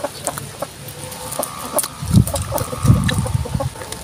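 Close-up eating sounds: a person biting, crunching and chewing food, with many small crisp crackles and wet mouth sounds, and a couple of louder low chewing sounds past the middle.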